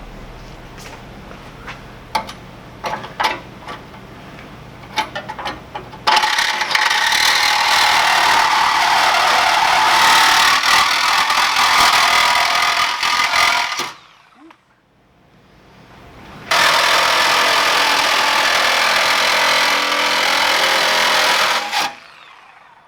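Several clicks and knocks, then a power saw cutting through the car's sheet-metal body in two long steady runs, about eight and five seconds, with a short pause between.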